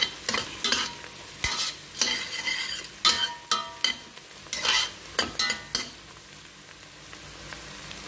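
Metal spoon scraping and clinking against a stainless steel pot while stirring chopped onions frying in oil over low heat, with a sizzle underneath. The stirring stops about six seconds in, leaving only the steady sizzle.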